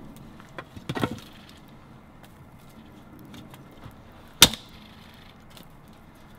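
Dry firewood sticks being handled and broken: a quick cluster of wooden knocks about a second in, then one sharp, loud crack a little after four seconds, with faint small ticks in between.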